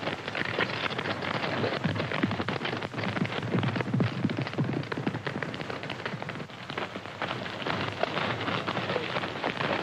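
Several horses galloping on dirt ground: a dense, irregular clatter of hoofbeats, on an old film soundtrack with a dull top end.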